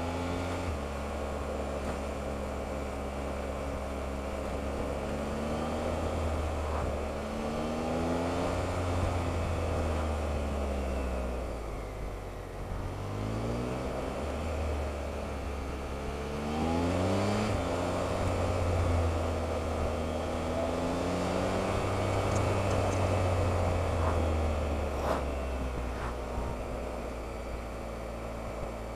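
Motorcycle engine and wind noise heard from the bike, played back at three times normal speed, so the engine note climbs quickly in steps through the gears several times, then drops back.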